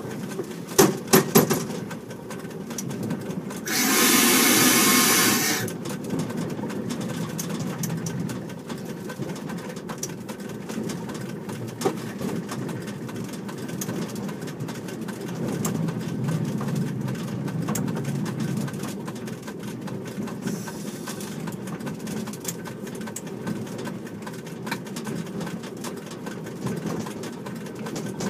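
Petit Train Jaune electric railcar running on the Cerdagne line: a steady rumble of wheels on the rails and the motors. There are a few knocks about a second in, and a loud hiss lasting about a second and a half about four seconds in.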